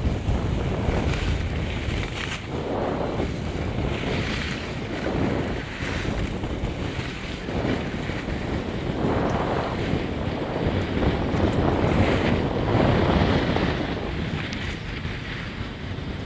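Wind buffeting the microphone of a camera moving down a snow slope, a heavy rumble with hissing swells every second or two that fit board or ski edges scraping over the snow.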